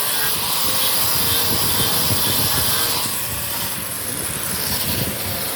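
Grinder running against a welded joint between aluminum sections, grinding the raised weld flush, a steady loud grinding hiss that eases a little past halfway.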